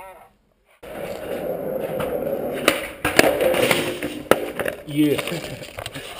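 Skateboard wheels rolling on concrete, starting about a second in, with a few sharp clacks of the board popping and landing.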